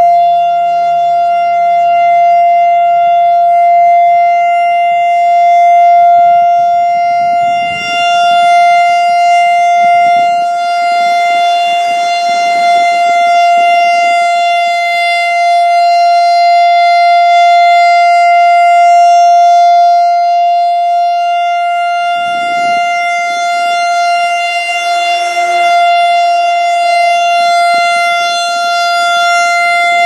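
Whelen WPS-3016 electronic siren sounding its steady Alert tone for the monthly test: one held pitch with many overtones that never glides. The speaker array rotates, so the level swells and dips gently.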